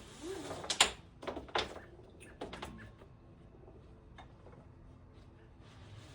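Hands working a rope and nylon saddle: rustling, with several sharp clicks and knocks in the first three seconds, then quieter scattered ticks and another brief rustle near the end.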